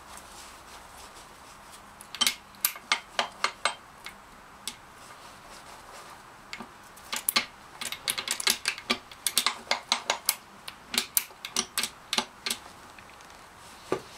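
Gearbox of an Aprilia Caponord ETV 1000 engine, opened on the bench, clicking and clattering metallically as its gears are worked by hand. A short group of sharp clicks comes about two seconds in, then a longer run of rapid clicks from about six and a half seconds to twelve and a half. The mechanic says the sound resembles a gear-shift fork fault: a fork that has come off or a broken spring.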